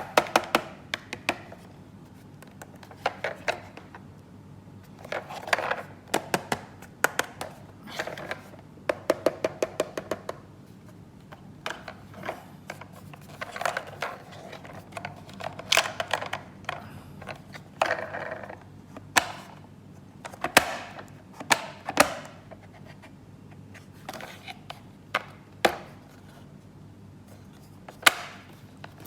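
Plastic toy pieces handled close to the microphone: irregular runs of quick clicks and taps, with short scraping and rustling between them.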